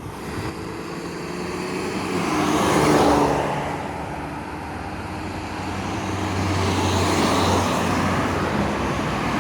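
Cars passing by on a road: one swells to its loudest about three seconds in, its engine note dropping in pitch as it goes past, and another swells and passes around seven to eight seconds in.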